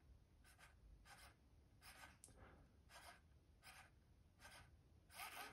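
CHAServo LV06 metal-geared sub-micro digital servo running on 3.3 volts, very quiet: faint short whirs about every three-quarters of a second as it sweeps back and forth, several of them doubled, with a little double centering when it returns.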